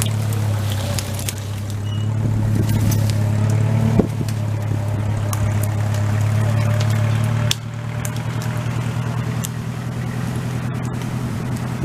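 An engine runs steadily under load while a blown-down white pine is pulled out, dropping lower about seven and a half seconds in. Sharp cracks and snaps sound over it, with one loud crack about four seconds in.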